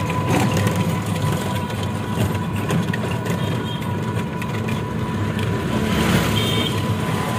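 Rumble of a moving auto-rickshaw heard from inside it, engine and road noise running steadily with a thin steady whine, and a short high beep about six seconds in.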